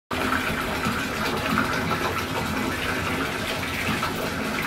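Water running from a bathtub faucet into a filling tub: a steady, even rush.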